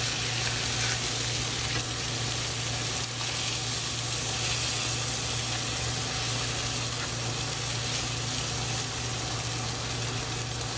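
Pollock fillets frying in butter and grapeseed oil in a skillet: a steady sizzle, with a spatula now and then scraping the pan as the fillets are turned and moved. A low steady hum runs underneath.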